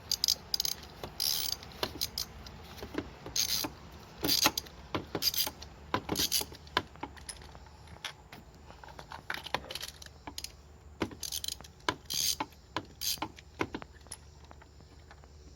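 Irregular metallic clicking and clinking of a ratchet, extension and spark plug socket as an old spark plug is worked loose and drawn out of its plug well.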